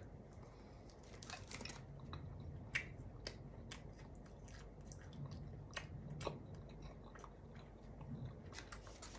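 A person chewing bites of soft pretzel with the mouth close to the microphone: faint chewing with scattered small mouth clicks.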